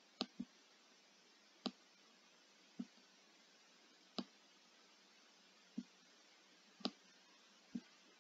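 Computer mouse button clicks: eight short, sharp clicks spaced about a second or more apart, the first two a quick double-click, over a faint steady hiss.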